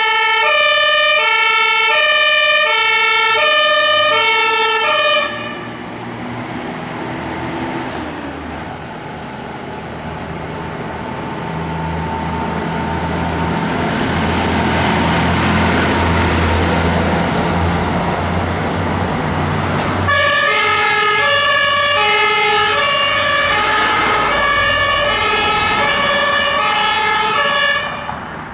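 Two-tone emergency-vehicle sirens (German Martinshorn), alternating high and low notes about every two-thirds of a second. The first siren cuts off about five seconds in, leaving the engine rumble and road noise of a passing heavy vehicle that swells and then fades; a second two-tone siren starts about twenty seconds in and stops just before the end.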